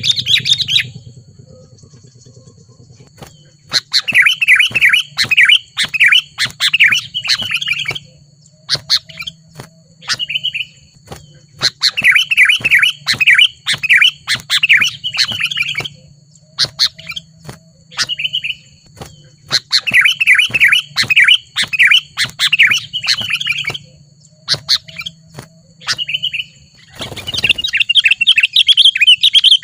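Sooty-headed bulbul (kutilang) singing vigorously. It gives loud bursts of rapid chattering notes about three seconds long, roughly every eight seconds, with short single calls between. A low steady hum runs underneath.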